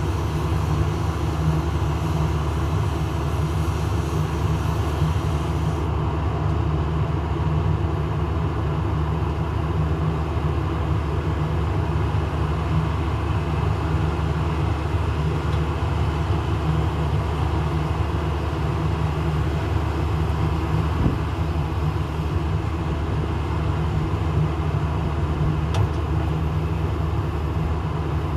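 Case IH 4430 Patriot sprayer's diesel engine running steadily at a constant speed while the hydraulic boom autofold is tested. The faint high hiss drops away about six seconds in.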